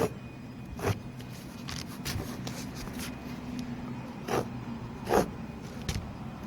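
A tape measure being handled and marks drawn on roofing tar paper: about half a dozen short scrapes and clicks over a steady low hum.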